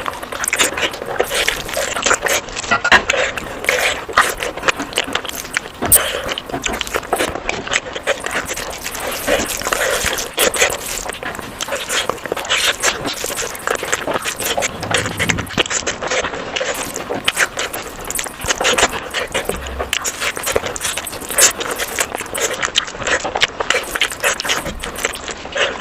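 Close-miked eating sounds: continuous chewing with wet mouth smacks and clicks.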